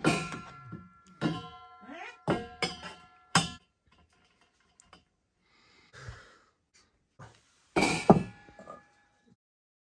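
A run of sharp clinks and clanks of hard objects, each ringing briefly, with a louder ringing clank about eight seconds in.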